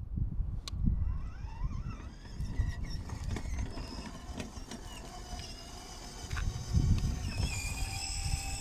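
Electric drive motors of a children's ride-on Mercedes-Benz G63 AMG (BBH-0002) whining as the toy car drives, rising in pitch between about one and two seconds in as it speeds up and holding steadier near the end. Gusts of wind rumble on the microphone.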